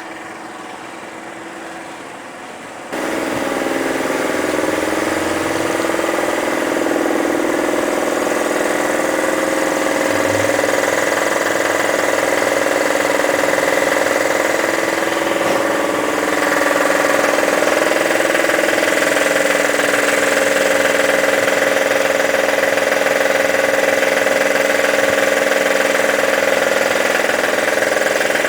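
A machine running steadily, loud and even, coming on suddenly about three seconds in after a quieter stretch.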